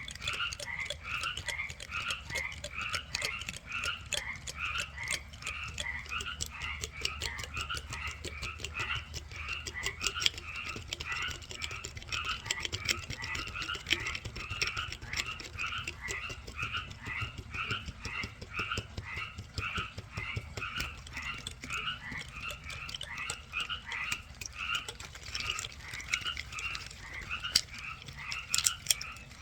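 A chorus of small animals calling continuously. Short calls in two pitches overlap and repeat several times a second, with sharp ticks over them.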